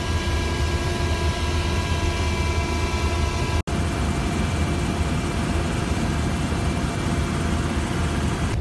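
Military helicopter cabin noise: a steady turbine and gearbox whine over a heavy low rotor rumble. There is a split-second dropout about three and a half seconds in, after which the whine is weaker.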